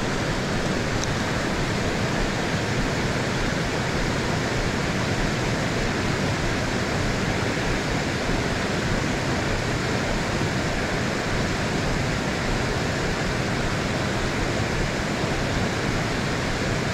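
Water pouring over a low river weir: a steady rush.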